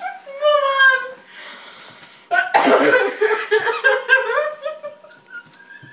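A woman in a fit of laughter: pulsing high laughs, a quieter breathy gasp about a second in, then a louder outburst of laughter about two and a half seconds in that trails away.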